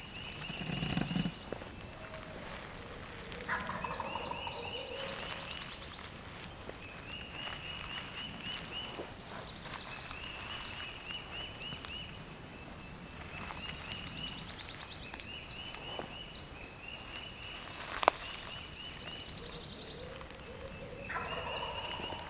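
A wild turkey gobbles twice, once a few seconds in and again near the end, while songbirds sing steadily. A single sharp snap is heard a few seconds before the second gobble.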